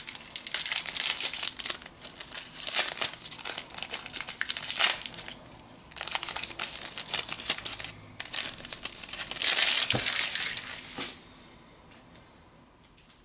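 Foil trading-card booster pack crinkling as it is handled and torn open, a dense run of irregular crackles for about eleven seconds that then dies down.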